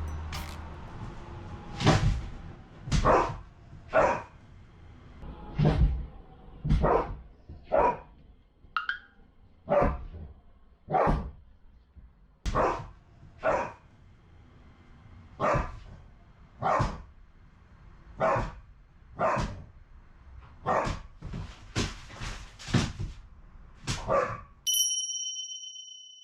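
Akita dog barking over and over, about once a second, in single deep barks. Near the end the barking stops and a brief high steady tone sounds.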